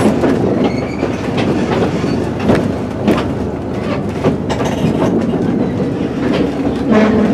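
Two-foot narrow-gauge passenger train rolling along, heard from aboard: a steady rumble of the wheels on the rails with irregular sharp clicks, about one a second, as they cross rail joints.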